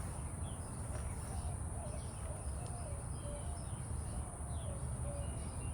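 Outdoor ambience: a steady high-pitched insect drone over a low rumble, with faint scattered bird chirps.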